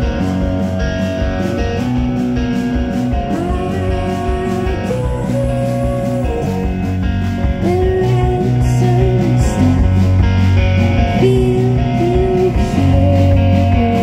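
Live indie rock band playing: two electric guitars holding and bending sustained notes over a steady drum beat.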